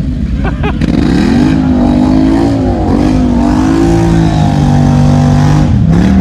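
Snorkelled ATV engine revving hard under load as the machine churns through deep mud and water; the pitch climbs and wavers, holds steady for a second or two, then falls away near the end.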